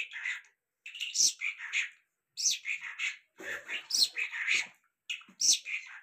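Caged lark ('Irani jal') singing a fast, varied song of chirps and trills, in three phrases split by short pauses.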